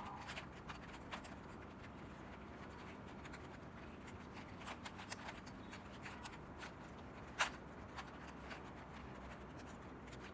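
3x3 puzzle cube being turned by hand: faint plastic clicks and scraping as the layers rotate, with one sharper click about seven seconds in. These are the last moves that put the final corners in place.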